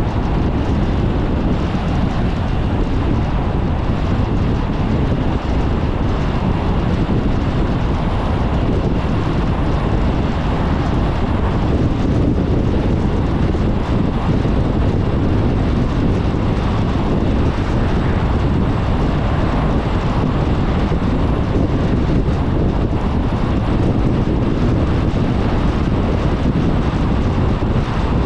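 Steady road noise of a car driving at highway speed: tyres on asphalt and air rushing past, an even low rumble with no change.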